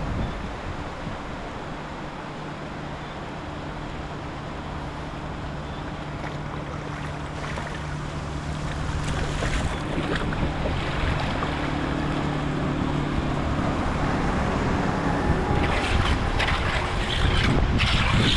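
Rushing, churning water with wind buffeting the microphone. A steady low hum runs through most of it, and the sound grows louder near the end with a few sharp knocks.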